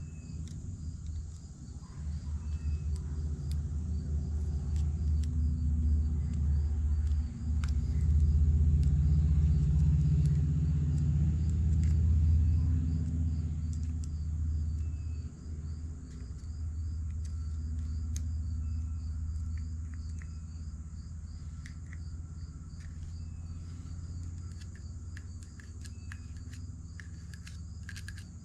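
A low rumble swells to its loudest about halfway through and then eases off. Crickets chirp steadily over it, and a few faint clicks are heard.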